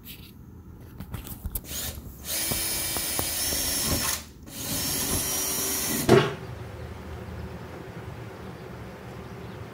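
Cordless drill boring a bolt hole through an enclosed trailer's aluminum side wall. It runs in two bursts of about two seconds each with a short break between, after a few light clicks. A sharp knock, the loudest sound, comes as the second burst ends.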